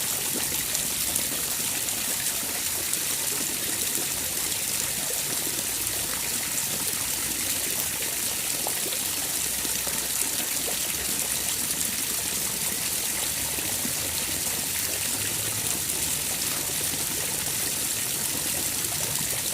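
Water trickling and splashing steadily, a continuous even gurgle with no pauses.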